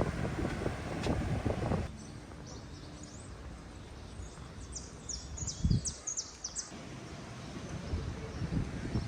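Wind buffeting the microphone outdoors by the sea. It cuts off abruptly about two seconds in, leaving a quieter stretch with a quick run of short, high rising chirps and a single low thump. A steady wind-and-surf hiss then comes back.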